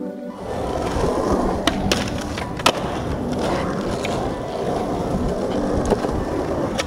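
Skateboard wheels rolling over asphalt: a steady gritty rumble that starts about half a second in, with a few sharp clicks along the way, the loudest about two and a half seconds in.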